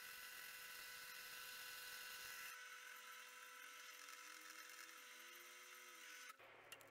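Drill press running with a faint, steady whir, spinning a rusty saw screw in its chuck while its head is scoured with sandpaper and steel wool. The whir cuts off suddenly near the end, followed by a couple of small clicks.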